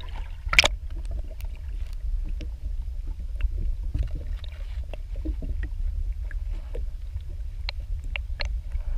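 Muffled sound picked up by a camera held underwater: a steady low rumble of water moving against the housing, with scattered faint clicks and ticks.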